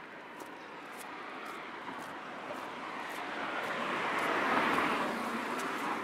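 A car driving past: its noise swells steadily to a peak about four and a half seconds in, then fades away.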